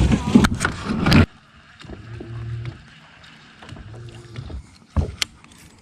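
A loud rushing noise for about the first second, then a low motor hum in two short bursts, with two sharp knocks near the end.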